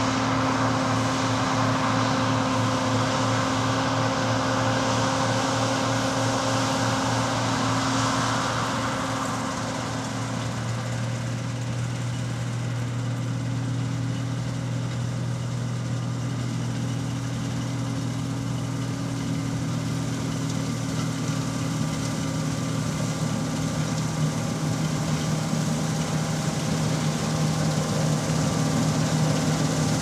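John Deere C670i HillMaster combine harvester running steadily while harvesting wheat: engine hum and threshing machinery. It eases off a little about a third of the way in, then grows louder near the end as the combine comes toward the listener.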